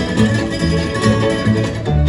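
Bluegrass band of banjo, mandolin, fiddle, guitar and bass playing an instrumental passage, with no singing, over an even alternating bass line.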